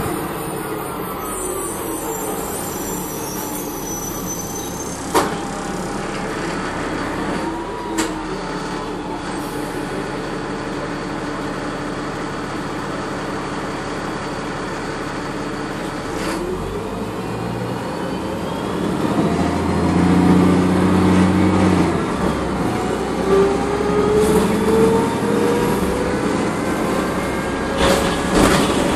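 Inside a city transit bus under way: the diesel engine and original Voith automatic transmission running, with a sharp rattle about five seconds in and another about eight seconds in. About two-thirds of the way through the sound gets louder as the bus pulls away, and a transmission whine rises in pitch as it accelerates.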